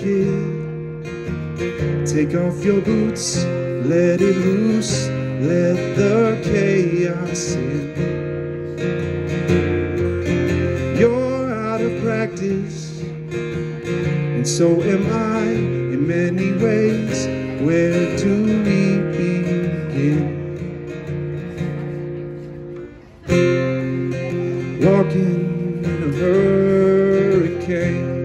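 Live acoustic guitar strummed with a man singing over it. The playing thins out briefly a little past twenty seconds in, then the strumming comes back in sharply.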